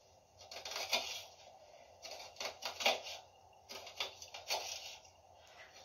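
Kitchen knife slicing through a peeled onion onto a wooden chopping board: about ten uneven cuts, each ending in a tap of the blade on the board.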